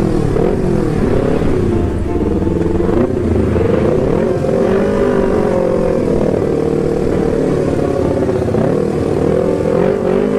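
Motorcycle engine running while riding on the road, its pitch rising and falling with the throttle, over road and wind noise.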